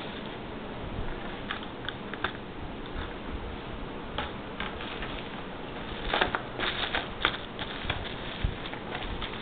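Light clicks and rattles of small hard parts being handled, scattered unevenly with a busier run of them about six to seven seconds in, over a steady hiss.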